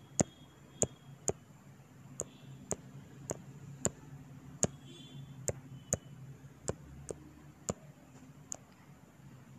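Fingertip taps on a phone touchscreen: about fifteen sharp, irregularly spaced clicks, each tap dotting a white star with the brush.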